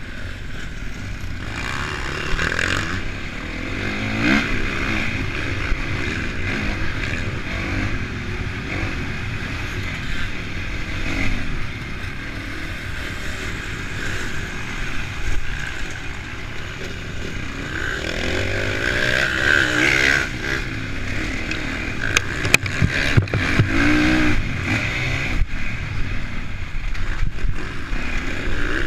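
Honda CRF450 single-cylinder four-stroke motocross bike ridden hard on a dirt track, its engine revving up and down with the throttle and gear changes. A cluster of sharp knocks comes about three-quarters of the way through.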